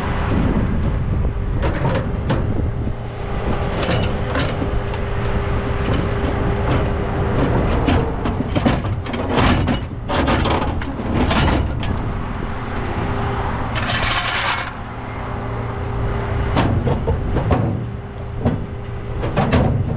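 Rollback tow truck's diesel engine idling steadily, with repeated metal clunks and rattles as side toolbox lids are opened and a steel floor jack is pulled out and handled.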